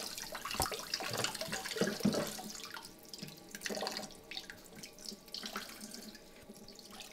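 Kitchen tap running into a sink as a bowl is rinsed under it, with small knocks of the bowl. The flow is strong at first and softer from about three seconds in.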